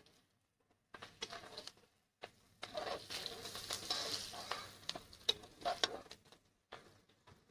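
Chopped onions and green chillies sizzling in hot oil in a pan as they are stirred, with light scrapes and taps of the spoon. The sizzle starts in short bursts about a second in and is fullest in the middle, dying back near the end.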